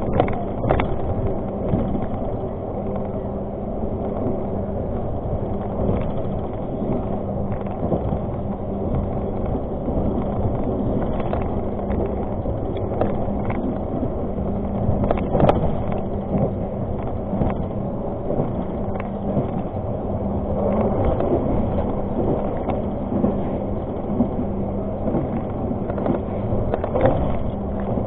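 Argo Parahyangan passenger train running along the track: a steady rumble with a constant low hum, and irregular clicks and knocks throughout.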